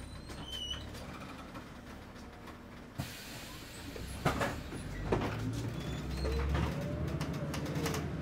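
City bus under way, heard from inside: steady engine hum with rattles and knocks from the body. About three seconds in the sound suddenly gets brighter, a few sharp knocks follow, then the engine grows louder and a whine rises and falls as the bus picks up speed.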